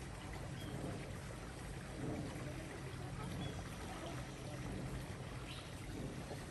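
Steady rush of falling and flowing water from a waterfall.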